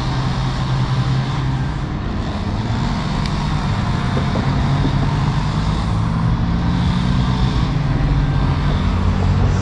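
Steady rumble of road traffic crossing the bridge over the canal, a continuous low hum of tyres and engines.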